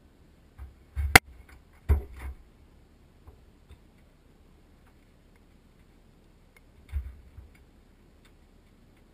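Scattered sharp cracks and knocks with dull thumps from inside a burning test room, like debris falling and materials popping in the fire. The loudest crack comes about a second in, a second cluster just after, and another cluster about seven seconds in.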